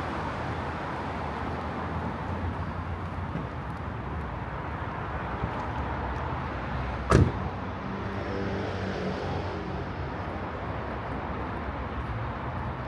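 City street ambience with a steady hum of traffic, broken about seven seconds in by a single sharp bang.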